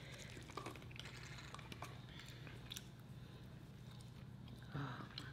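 Faint eating sounds: chewing and a few scattered small clicks and smacks of fingers picking food from a tray, over a steady low hum.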